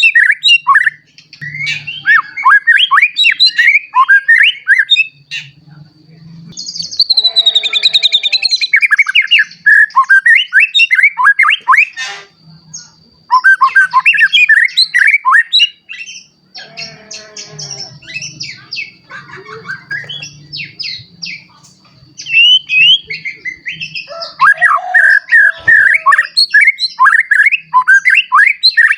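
White-rumped shama (murai batu), a young male freshly moulted into adult plumage, singing vigorously: loud phrases of rapid, sweeping whistled notes lasting a few seconds each, broken by short pauses.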